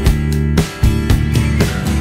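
Background music: a song with strummed guitar over a steady beat.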